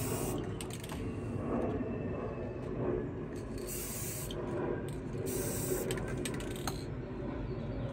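Aerosol spray-paint can, set on its low-output setting, spraying black paint in separate bursts of hiss: a short one just after the start, then two longer ones of about a second each around the middle. A steady low rumble runs underneath.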